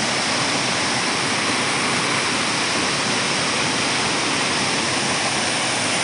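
Several waterfalls pouring into a rocky pool, with a shallow stream running over stones: a steady, even rushing of water.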